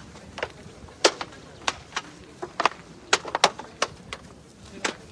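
A burning pile of seized drugs and packaging popping and crackling: a string of sharp cracks at irregular intervals over a low steady background.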